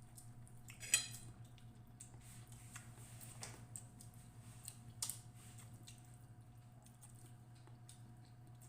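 Eating at a table: a sharp clink of utensil or dish about a second in and another near five seconds, with small clicks and soft wet squishes of picking at and chewing fish and rice, over a steady low hum.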